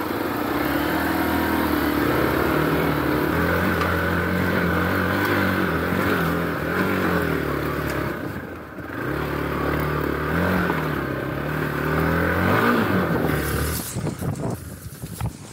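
Hero Xpulse 200 4V's single-cylinder engine revving hard, its note rising and falling with the throttle as the bike pulls out of deep mud ruts and gets under way. The engine note drops away sharply near the end.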